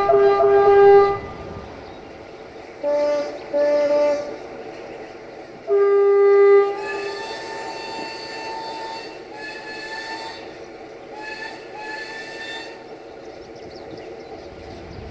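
Air horns of a 060-DA (LDE2100) diesel-electric locomotive under test: a loud blast ending about a second in, two short lower-pitched blasts around three and four seconds, another loud blast near six seconds, then a string of quieter, higher-pitched horn notes that stops about thirteen seconds in.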